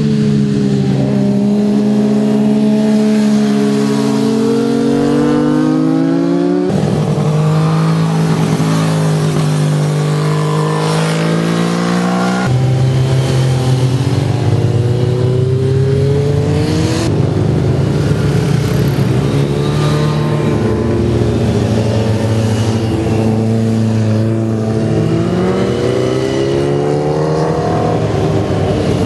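Motorcycle engines revving as bikes lean through a bend and accelerate out of it, the engine note climbing in pitch through the gears. Several times the sound jumps abruptly from one bike to another.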